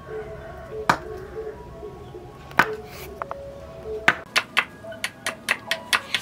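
Short chopping blade striking a green bamboo pole on a wooden block: two single chops about two seconds apart, then a quick run of chops, about five a second, from about four seconds in. Light background music plays under it.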